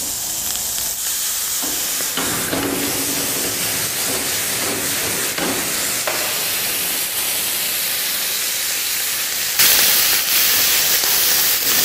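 Mushrooms sizzling in a hot grill pan while the wine poured over them burns off in a flambé, a steady hissing sizzle. Near the end it jumps suddenly to a louder hiss of steam.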